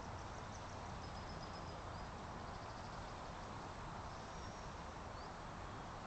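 Steady rushing of river water, with a few faint, high bird chirps about a second in and again about four to five seconds in.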